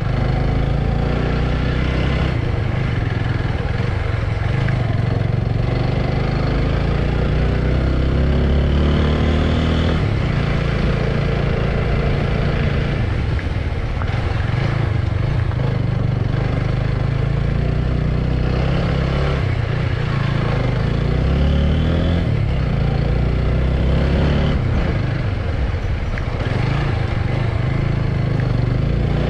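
Motorbike engine running steadily while riding, its pitch shifting a little now and then, over a constant rush of noise.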